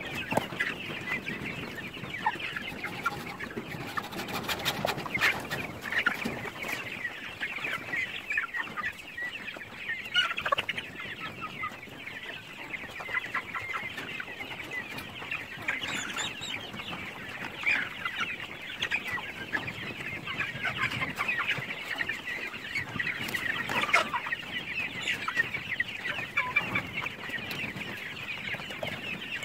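A flock of young chickens clucking and cheeping without a break, many birds at once, with a few light clicks about four to six seconds in.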